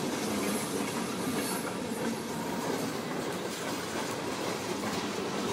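Freight train of tank cars rolling past, a steady, unbroken noise of steel wheels running on the rails.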